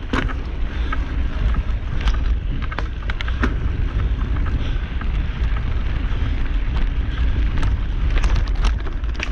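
Wind buffeting the microphone as a steady low rumble while riding a mountain bike along a dirt trail, with scattered clicks and rattles from the bike over the bumps.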